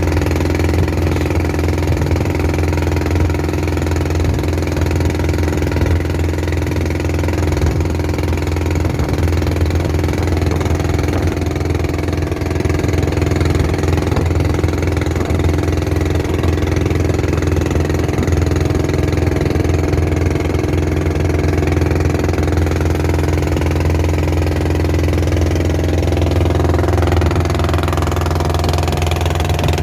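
Long-tail boat engine running steadily, a constant loud drone with no change in speed.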